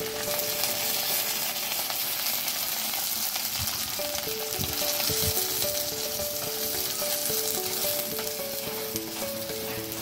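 Chopped onion and green chillies frying in hot oil with mustard seeds, fennel and curry leaves: a steady, dense sizzle, with occasional stirring.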